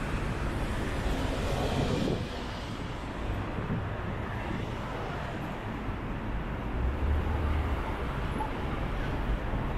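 City street traffic noise with a steady low rumble; a vehicle passes close in the first two seconds, its sound dropping away sharply just after.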